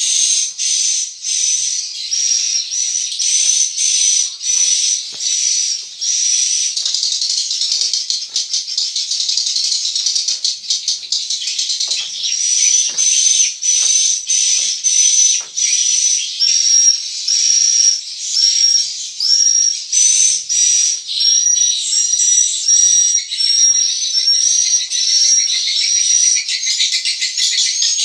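Swiftlet calls filling a swiftlet house: a dense, continuous high twittering with sharp chirps repeating a little over once a second, and lower hooked notes joining in over the second half.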